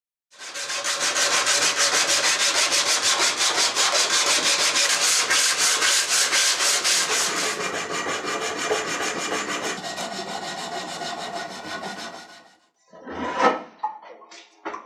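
An abrasive strip pulled rapidly back and forth around a wooden cleaver handle, shoe-shine style: a steady, fast rasping rub of sanding on wood. It stops near the end, followed by a few knocks.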